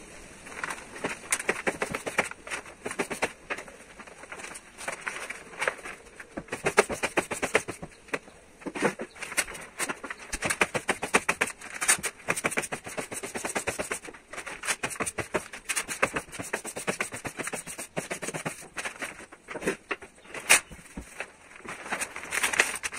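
Large sheet of carbon-fibre-pattern adhesive vinyl wrap film crackling and rustling as it is lifted off the car roof and laid back down while being positioned. The crackles are rapid and irregular.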